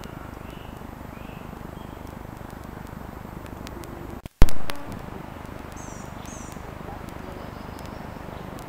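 Woodland ambience: a steady background rush with faint, high bird chirps, a couple of them about six seconds in. About four seconds in, the sound drops out for an instant and then comes a single loud thump that dies away within half a second.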